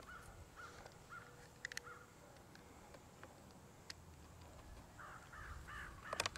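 Crows cawing in the background, a short run of calls near the start and another near the end. Sharp clicks come from the Hatsan Flash Pup air rifle's loading action being worked: two close together about a second and a half in, and a louder cluster at the very end.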